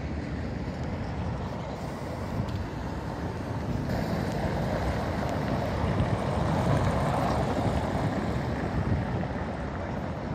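Steady, noisy low rumble of a running vehicle, swelling louder about halfway through and easing off near the end.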